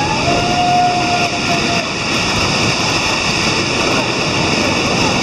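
Steady, loud rush of water pouring down a natural rock waterfall slide. A single high held note rides over it for about a second and a half near the start.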